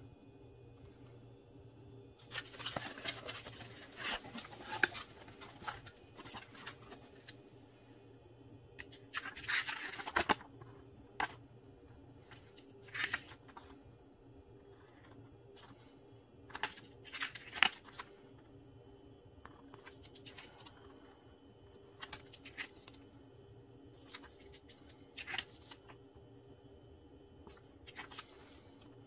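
Paper and cardboard being handled: an instruction booklet's pages rustling and crackling as they are opened and turned. The sounds come in short scattered bursts with quiet gaps between.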